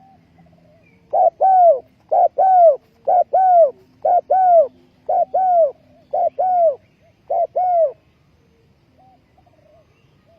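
Spotted dove cooing: seven two-part coos, each a short note followed by a longer arched note, about one a second. Fainter coos come before and after.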